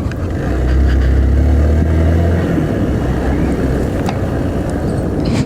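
Hero Xpulse 200T's single-cylinder engine running as the bike is ridden off-road. A steady low engine note fades about two and a half seconds in, under a continuous rushing noise.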